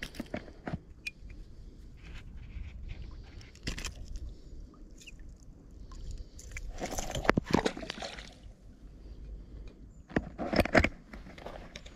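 Handling noise as a small bass is unhooked from a lure: scattered clicks and rustles, with two louder scuffing bursts about seven and ten seconds in, over a steady low wind rumble on the microphone and water sloshing at the shore.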